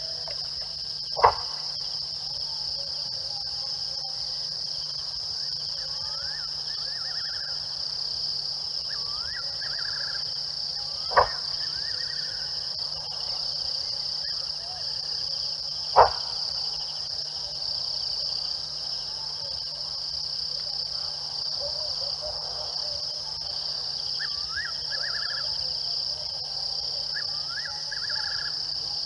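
Steady high-pitched night chorus of crickets, with groups of short rising chirps ending in quick trills every few seconds from another calling animal. Three sharp clicks stand out, about a second in, about eleven seconds in and about sixteen seconds in.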